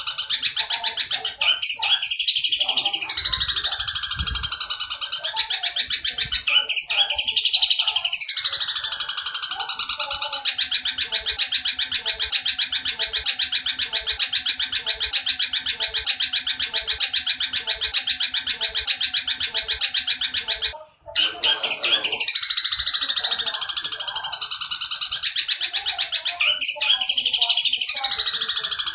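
Long-tailed shrike (candet) giving fast, harsh, stuttering chatter in the style of an Oriental dollarbird's call ('tembakan tengkek buto'). It comes in long runs, some phrases falling in pitch, with a brief break about two-thirds of the way through.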